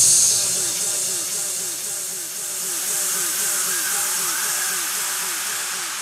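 Electronic music playing through a portable Bluetooth speaker in a sparse passage after the beat drops out: a loud steady hiss over a short falling synth figure that repeats about four times a second, slowly getting quieter.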